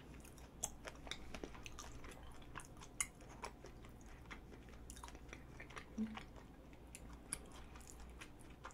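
A person chewing strawberry mochi (glutinous rice cake with a whole strawberry) with the mouth closed: faint, irregular soft clicks and wet smacks, a handful a little louder than the rest.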